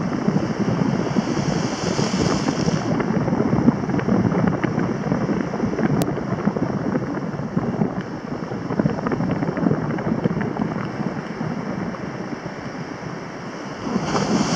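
Sea surf washing over rocks, a steady rush of waves, with wind buffeting the microphone.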